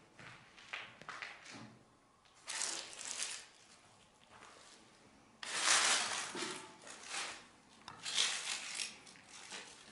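Rustling and scuffing from people moving about and handling their gear close to the microphone, in several short bursts. The loudest starts suddenly about halfway through.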